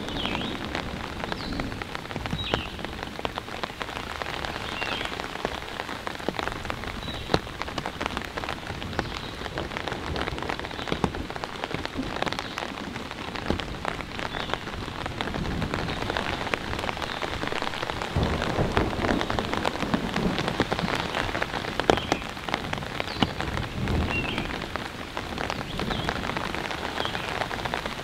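Steady rain falling on forest foliage, with many single drops striking sharply close by and a low rumble about two-thirds of the way in.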